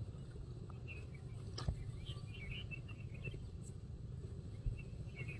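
Faint small-bird chirps scattered over a steady low rumble, with a sharp knock about two seconds in and another near the end.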